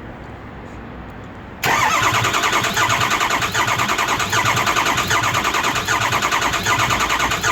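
Ford 6.0 Power Stroke V8 diesel being cranked on the starter without firing: a steady, evenly pulsing cranking sound that starts suddenly about one and a half seconds in. The ICP gauge reads zero injection control pressure, so the engine cannot fire.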